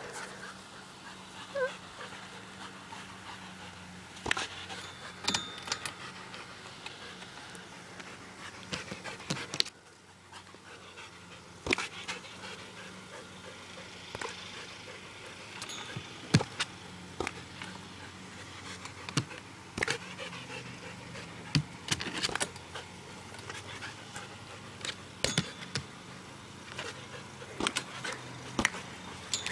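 Dog panting as it plays at a tetherball, with scattered sharp knocks and clicks as the ball is batted and bitten.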